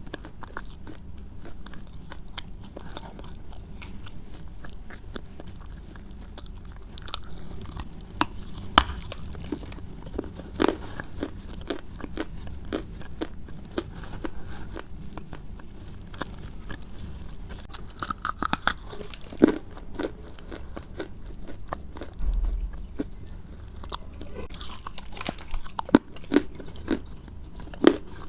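Close-miked crunchy chewing and biting of crisp food: irregular crackling crunches, with a few louder, sharper cracks as it is bitten.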